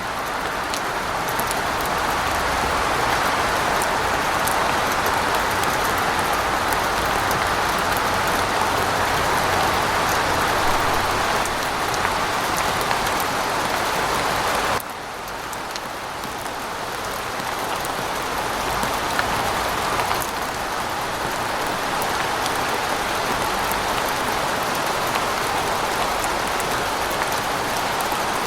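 Steady rain falling: a dense hiss of drops with scattered individual drop ticks, over a faint low rumble of distant city traffic. About halfway through the rain abruptly drops in level and thins, then slowly builds back.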